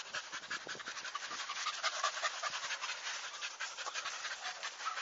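A dog panting fast and steadily after running.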